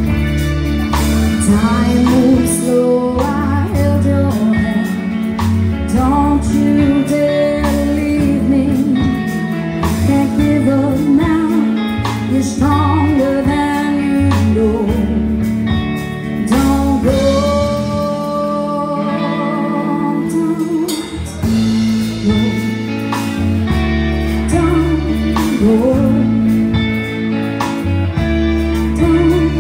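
Live band playing a song: a woman singing lead over electric guitar, bass guitar and drums.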